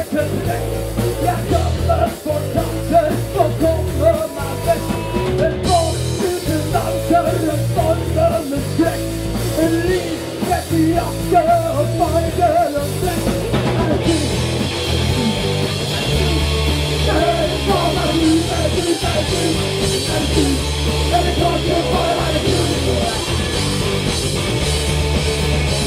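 A rock band playing live: distorted electric guitars, bass and a drum kit, with a singer over them. The band's sound turns brighter and fuller about halfway through.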